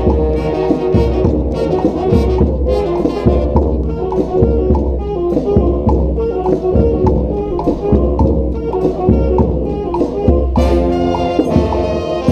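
Brass street band playing a tune: trumpets, trombones and saxophones over a steady drumbeat. The horns get louder and brighter near the end.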